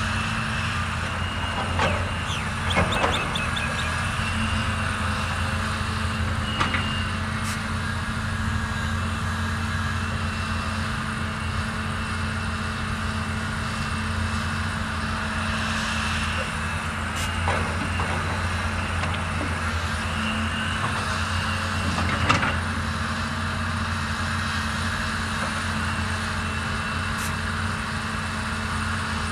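Diesel engine of a CAT 320D RR excavator running steadily at working speed, with occasional short metallic clanks and knocks, the loudest about 22 seconds in.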